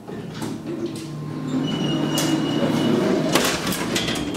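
Elevator car's sliding doors opening at the top landing: a rising mechanical rumble and whir from the door operator, with a few clicks toward the end.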